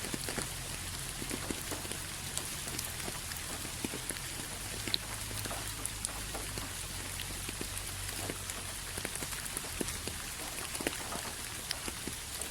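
Steady rain falling on a surface, an even hiss with scattered sharp drop ticks, over a faint low rumble.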